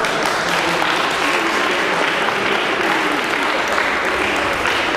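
A group of people applauding, steady clapping throughout.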